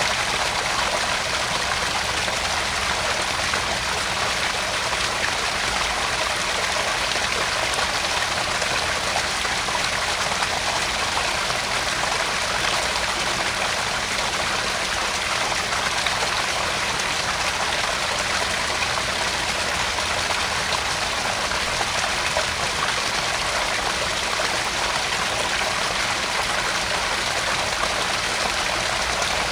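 Garden pond waterfall: water spilling and trickling steadily into the pond.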